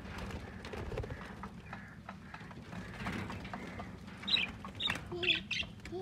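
Budgerigars in a wire aviary cage, with a few short, sharp chirps clustered near the end, and a bird's wings flapping.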